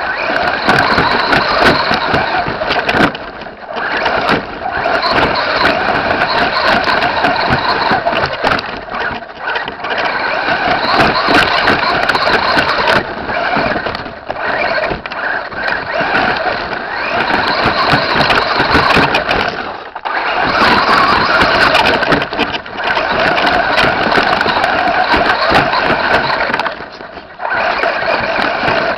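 Traxxas Slash 4x4 RC truck's electric motor and geared drivetrain whining under throttle, heard from inside the truck's body with the chassis and body shell rattling over rough dirt. The whine cuts out briefly about five times as the throttle is let off, then comes back.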